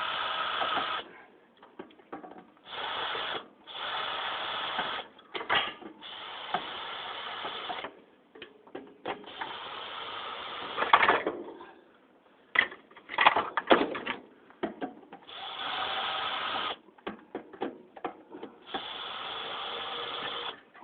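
A power drill-driver running in short bursts of one to two seconds, about seven times, backing out the screws that hold the ceiling fan's blades. Between the bursts come clicks and knocks of metal parts being handled.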